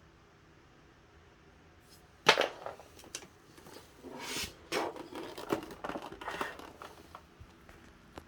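Hard parts of an electric fan being handled: a sharp knock about two seconds in, then irregular clicks and clattering for about five seconds, over a faint steady hum.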